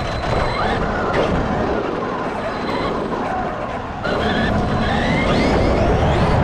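Onboard sound of an electric RC monster truck driving: the brushless motor's whine rises and falls with the throttle over a rough rumble of the tyres on pavement. It gets louder about four seconds in.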